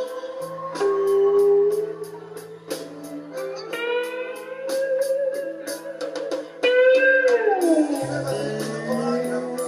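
Three-string cigar box guitar played with a slide: a blues riff with notes sliding between pitches and a long downward slide about seven seconds in, over a steady clicking beat.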